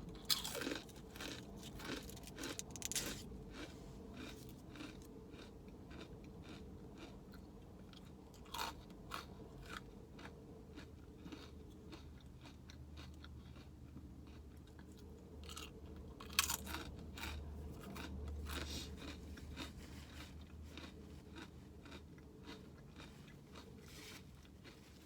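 Fortune cookie being bitten and chewed close to the microphone: irregular crisp crunches, with the loudest bites about 3, 9, 16 and 18 seconds in.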